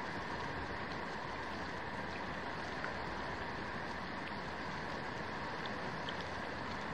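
Steady rushing background noise with no distinct events, a few faint high ticks in the second half.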